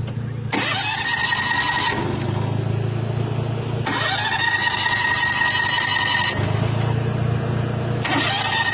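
Electric starter cranking a Honda small engine three times, each try about two seconds long with a whine that rises and then holds steady. The engine turns over but never catches: it is a no-start after running rough and quitting.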